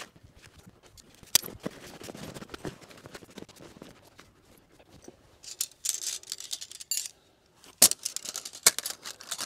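Canvas swag being folded and rolled up by hand: rustling and scraping of heavy canvas with clinks and clicks from its poles and fittings, and a few sharp clicks, the loudest near the end.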